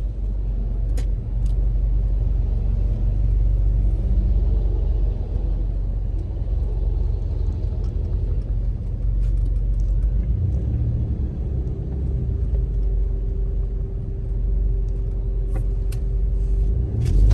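Car engine and road noise heard from inside the cabin as the car creeps along at low speed: a steady low rumble with a few light clicks. A faint steady tone joins in past the middle.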